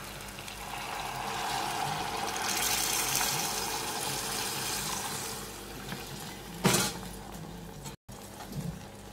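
Water poured into a saucepan of tomato paste and garlic frying in oil: a rush of pouring and sizzling that builds over about a second, swells, then fades after about five seconds. A single knock follows near the end.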